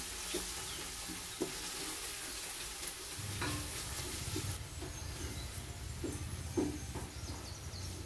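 Sliced onions and whole spices sizzling in oil in an electric rice cooker, stirred with a wooden spatula that knocks lightly now and then; they are being fried toward golden brown. A low steady hum joins about three seconds in.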